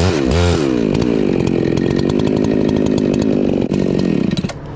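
Chainsaw revved twice, then held at full throttle for about three and a half seconds as it cuts into the tree trunk, and let back down to idle just before the end.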